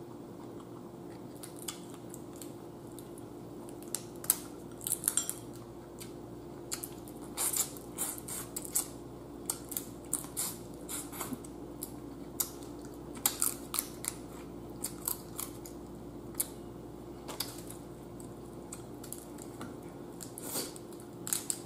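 Cooked blue crab shells being cracked and picked apart by hand: irregular crackling snaps and clicks, with a steady low hum underneath.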